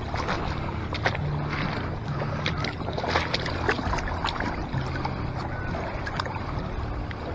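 Shallow lake water splashing and sloshing around a striped bass held in it by a lip grip and around the angler's waders, with many small sharp splashes and ticks.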